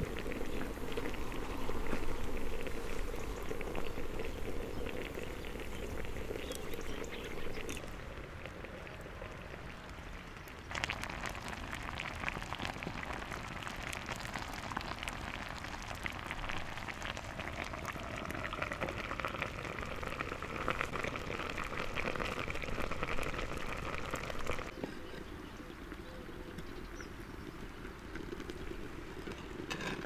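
A tagine simmering over a wood fire: liquid bubbling and sizzling with a dense patter of small pops. The sound changes abruptly about 8 and 11 seconds in and again near 25 seconds, getting busier and brighter in the middle stretch.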